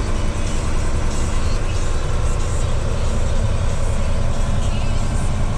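Semi truck's diesel engine running steadily from inside the cab as the truck rolls along, a low, even drone.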